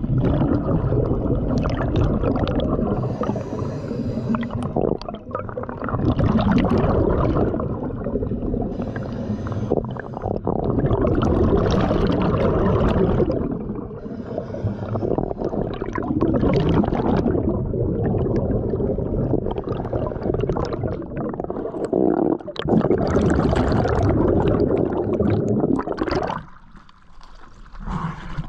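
Underwater rush and gurgle of exhaled scuba bubbles streaming past the camera as the diver ascends, swelling in surges a few seconds apart. Near the end it drops away sharply as the camera breaks the surface.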